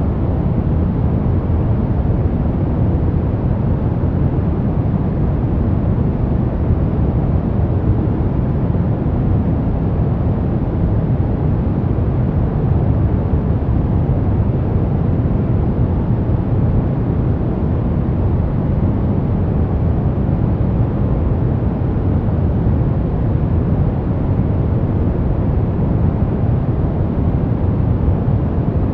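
Steady brown noise: a continuous, even rumbling hiss weighted toward the low end, with no changes or events.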